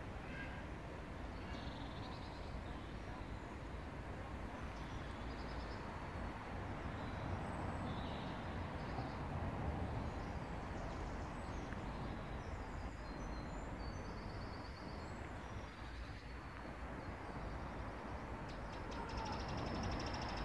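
Outdoor garden ambience: small birds chirping now and then over a steady low rumble, with a quicker, sustained bird trill near the end.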